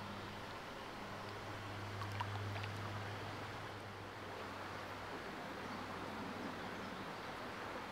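Shallow stream running over rocks, a steady rushing hiss, with a low steady hum underneath that swells briefly about two seconds in.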